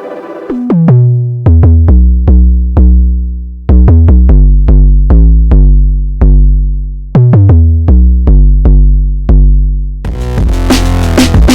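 Ableton Drift synthesizer preset playing a low bass-synth riff of short, punchy notes, each with a quick pitch drop at the attack and a fast decay. About ten seconds in it switches to a denser, gritty electronic patch with a busy drum-like rhythm.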